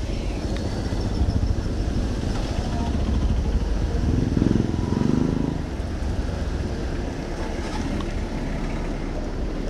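Street traffic: motor vehicles running past, with one passing close and loudest about four to five seconds in, over a steady wash of street noise.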